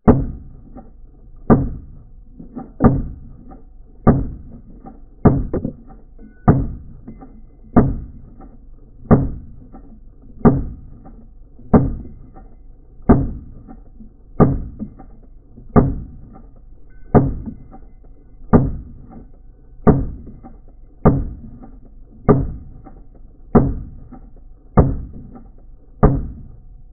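AR-15 rifle shots in a steady string, about twenty of them evenly spaced about 1.3 s apart, each a sharp report with a short dull decay. The sound is slowed down along with the 240 fps slow-motion footage, so every shot comes out deep and muffled.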